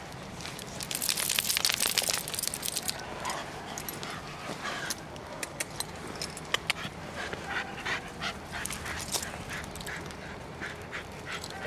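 A Staffordshire bull terrier on a lead nosing along a leaf-littered woodland path, with small dog noises. Its paws and the walker's steps crunch and scuff on twigs and dry leaves, thickly for a couple of seconds about a second in, then as scattered clicks.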